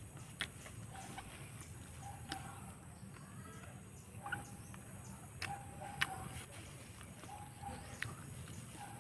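Faint clucking of chickens in short repeated calls, with a little bird chirping and a few sharp clicks.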